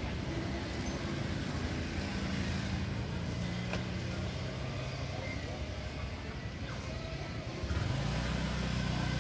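Motor vehicle engine running close by, a steady low hum that gets louder about eight seconds in.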